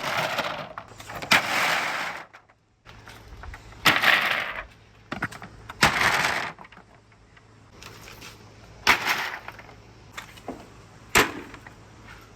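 Marbles on a marble run, each giving a sharp click followed by a short rolling rush, about six times at intervals of roughly two seconds.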